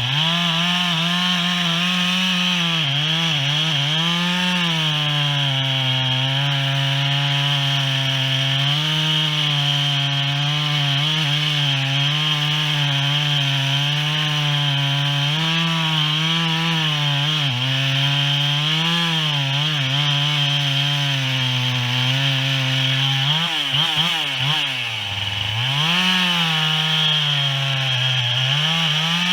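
Chainsaw cutting into a tree, running at high revs with its pitch sagging and picking back up as the bar bites. About three-quarters of the way through, the revs drop sharply and then climb again.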